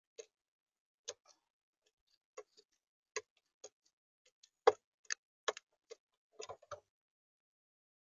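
Magpie pecking seed from a plastic feeder tray: irregular sharp taps and clicks of its beak, the loudest about halfway through, with a quick flurry of pecks near the end.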